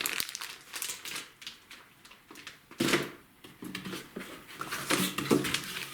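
Fireworks packs being handled and set down: scattered rustling, clicks and light knocks of cardboard and plastic packaging.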